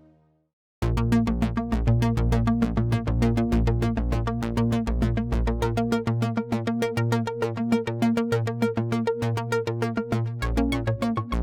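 TAL J-8 software synthesizer, an emulation of the Roland Jupiter-8, playing a factory preset. It starts just under a second in, after the previous sound has faded out: a fast run of short repeated notes over a bass line that moves in steps.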